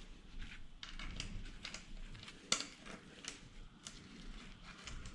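Scattered light clicks and taps of hand tools and mounting screws being worked loose from an e-bike's rear shock mount, with one sharper click about two and a half seconds in.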